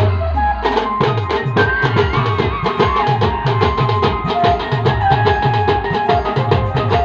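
Band music with a quick, steady drum beat of deep kick drums under a melody line. The beat drops out briefly at the start, leaving a sustained low bass note, then comes back in.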